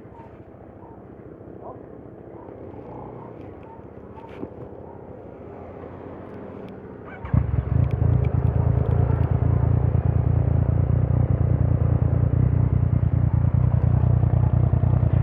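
Yamaha MT-09 motorcycle's inline three-cylinder engine with an Akrapovič exhaust starting about seven seconds in, then idling steadily with a deep rumble.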